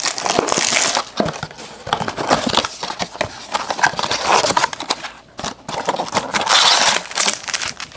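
Hands opening a trading-card blaster box and handling its packs: irregular crinkling of plastic wrap and foil with cardboard clicks and rustles.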